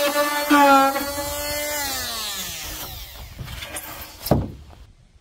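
Small handheld corded power tool cutting a recess into foam insulation board: its motor runs with a steady whine, louder for a moment about half a second in, then is switched off and winds down with a falling pitch. A single sharp thump comes about four seconds in.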